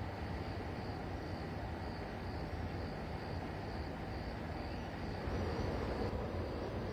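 Distant Frecciarossa high-speed electric train moving slowly over the station tracks: a steady low rumble and hiss that grows a little louder about five seconds in.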